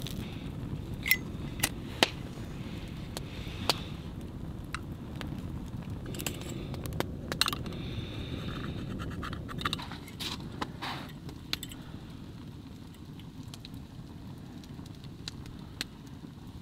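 Wood fire crackling over a low rush of flames, then small metallic clinks and scrapes as a UCO candle lantern is handled and hung up.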